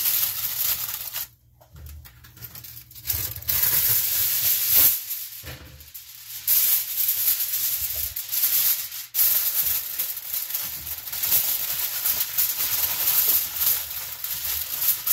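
Aluminium foil crinkling and rustling as it is folded and crumpled by hand around a rack of pork ribs, with a short pause a little over a second in.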